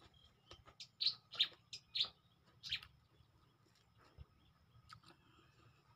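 A person chewing food close to the microphone: a quick run of short, wet lip-smacks and mouth clicks in the first three seconds, then a few fainter ones.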